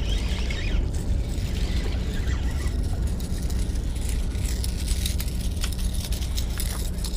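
A baitcasting fishing reel being cranked to bring in a hooked mackerel, with light scattered clicks over a steady low rumble.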